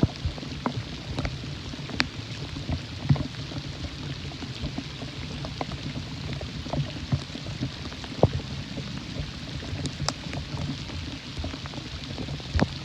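Rain falling steadily, with scattered drops ticking sharply at irregular intervals.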